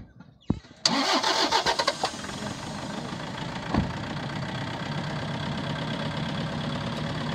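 An engine starting about a second in, with a rapid rattle for about a second, then running steadily.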